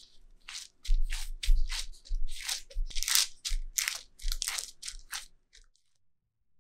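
Cooking parchment crinkling and crackling in a quick series of bursts as a gloved hand presses a rice-flour dough ball flat on it, with dull thumps of the hand against the work surface; it stops about five and a half seconds in.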